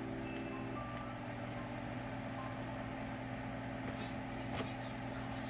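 Steady low mechanical hum of room background noise, with a couple of faint ticks about four seconds in.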